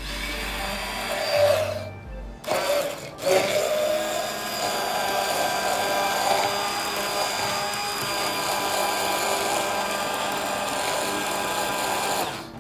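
Handheld immersion blender running in a stainless steel shaker tin, frothing egg white with the other sour ingredients. It stops briefly twice in the first few seconds, then runs steadily until it cuts off near the end.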